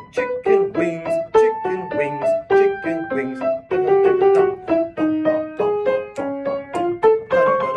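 Acoustic piano played by a young pupil: a melodic phrase of separate notes at a moderate, fairly even pace, about three or four notes a second.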